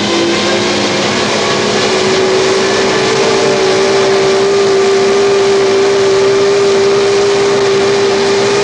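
Brake test stand running with its wheel spinning: a loud machine hum that rises in pitch over the first few seconds and then holds steady, over a dense rushing noise.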